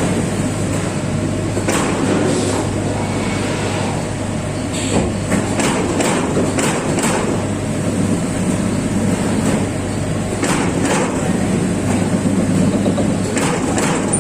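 Amada PEGA 357 CNC turret punch press running, a steady machine hum broken by sharp punching strikes on stainless steel sheet at irregular intervals.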